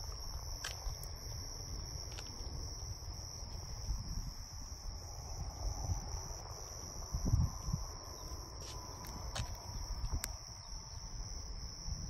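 Crickets chirping in a steady chorus, one continuous high trill, over a low rumble of wind on the microphone with a few soft thumps.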